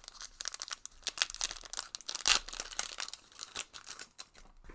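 Digimon card game booster pack wrapper crinkling as it is torn open by hand: a dense run of sharp crackles, loudest a little past two seconds in.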